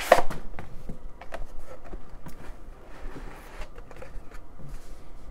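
Cardboard packaging being handled: a box sliding and scraping out of its outer sleeve, and a cardboard lid being lifted off an inner box, with light taps and rustles. The loudest sound is a short sharp scrape right at the start.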